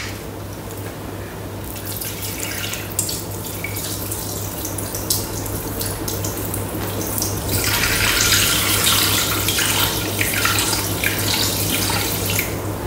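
Water poured from a plastic squeeze bottle into a Thermomix's stainless steel mixing bowl, splashing as it fills. The pour starts thin and becomes a fuller, louder stream about eight seconds in.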